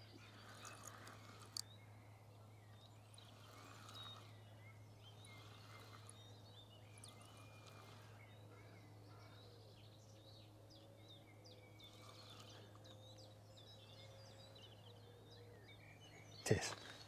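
Faint songbirds chirping and calling here and there over a low steady hum, otherwise close to silence.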